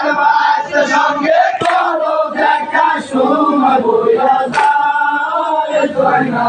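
A group of men chanting a mourning song together, many voices in unison, with a few sharp hits cutting through.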